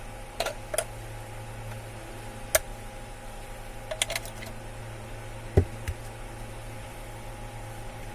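A few scattered sharp clicks and taps of small parts being handled, with a steady low hum underneath.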